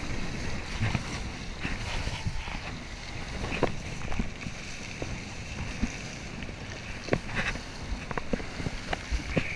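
Kiteboard planing over choppy water: a steady rush of water and spray mixed with wind noise on the chest-mounted camera, with scattered short knocks as the board hits the chop.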